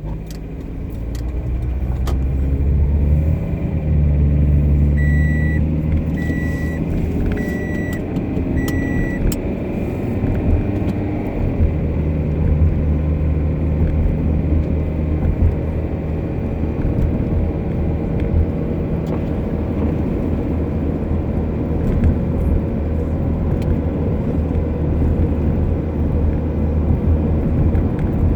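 Passenger car driving with road rumble and a whine that rises in pitch as it gathers speed, then holds steady: the noise of a worn differential and a failing wheel hub bearing. Four short beeps sound a few seconds in.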